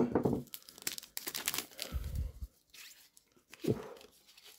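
Wrapper of a sealed 1991 All World boxing trading card pack being torn open and crinkled by gloved hands, in irregular crackles, loudest right at the start and again near the end.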